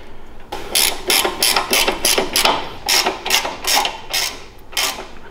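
A 16 mm ratcheting wrench clicking rapidly, about four clicks a second with a short pause near the end, as the handlebar clamp bolts are run down.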